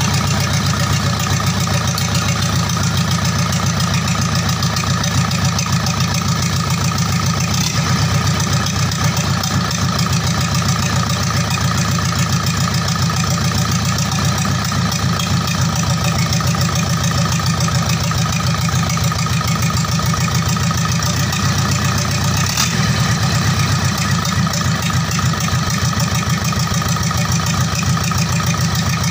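Diesel engine of a PS 125 truck idling steadily with an even low-pitched clatter, running just after being started following its rebuild and reinstallation.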